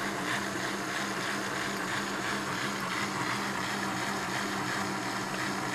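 Electric countertop blender running steadily, its motor humming evenly as it grinds salted black beans, tomatoes and garlic into a thick paste.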